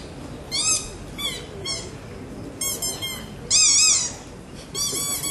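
A series of short, high, bird-like chirps and squawks, several a second, with a louder warbling trill about three and a half seconds in.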